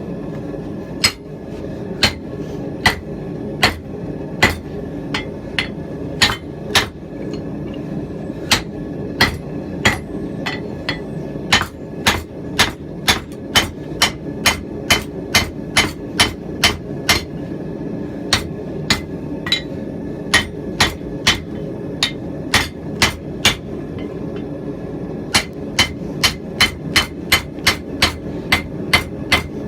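Blacksmith's hand hammer striking hot steel on an anvil while forging a rounding hammer head: sharp, evenly paced blows about one to two a second, pausing briefly and then coming quicker, about three a second, near the end. A steady low rumble runs underneath.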